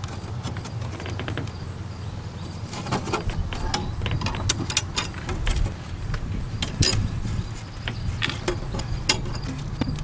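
Scattered small metal clicks and taps as a wrench loosens and removes the bolt holding the gas orifice on a propane camper fridge's burner, over a steady low hum.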